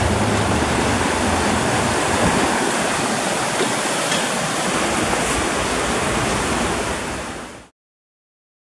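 Steady rushing noise of a bicycle being ridden: wind and tyre noise on the microphone, with a low hum fading away over the first couple of seconds. It cuts off abruptly to silence near the end.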